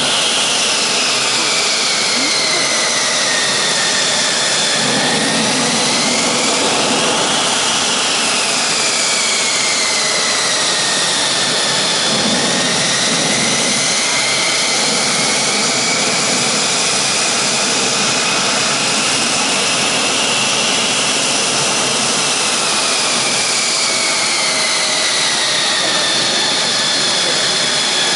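Mitsubishi F-2's General Electric F110 turbofan running loudly on the ground during an engine run-up. A steady jet rush carries a high whine that slowly falls and rises in pitch several times as the engine speed changes.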